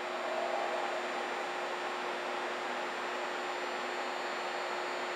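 Steady electrical hum and hiss of a Nagoya Municipal Subway 2000 series train standing at the platform with its doors open, its onboard equipment running, with one constant low tone throughout.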